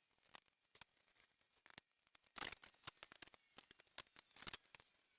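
Faint, scattered clicks and ticks of hand tools working on the fence of a Ryobi 10-inch miter saw to loosen it, with a short cluster about two and a half seconds in and another near the end.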